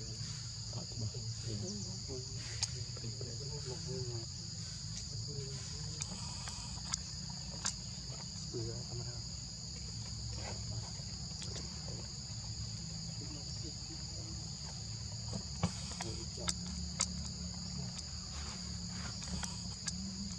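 Steady, high-pitched insect chorus holding two pitches, with a few scattered sharp clicks over a low background rumble.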